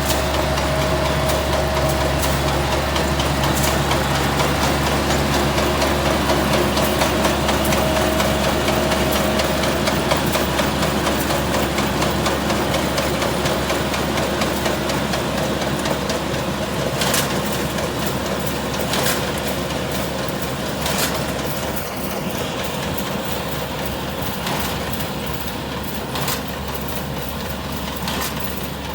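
Rice combine harvester running steadily, a low engine hum with a few sharp clicks in the second half.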